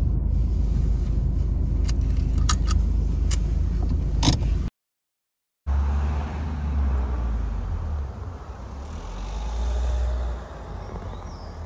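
Car cabin rumble from a slowly moving car, with several sharp clicks about two to four seconds in. The sound cuts out completely for about a second, then a fluctuating low rumble follows and fades near the end.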